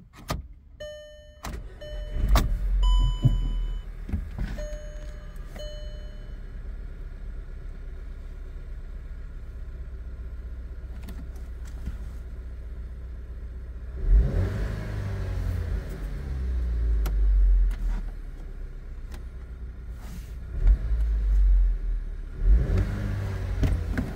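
Volkswagen Passat 2.0T turbocharged four-cylinder engine started about two seconds in, amid a few short electronic warning chimes from the dash. It settles to a steady idle and is then revved several times from about halfway on.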